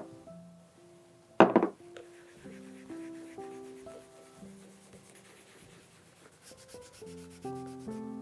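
Chamois cloth rubbing cream polish into the leather of a dress shoe, with one short louder rub about a second and a half in and faint strokes near the end. Soft background music of held notes plays under it.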